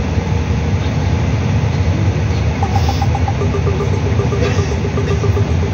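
Cabin noise of a Bombardier CRJ900 taxiing, its two rear-mounted turbofan engines running at low taxi power: a steady low rumble with a hiss over it. A faint, rapidly pulsing tone joins about halfway through.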